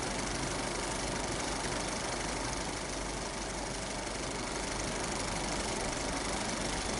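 8mm film projector running: a steady mechanical whirr with a low hum, unchanging throughout.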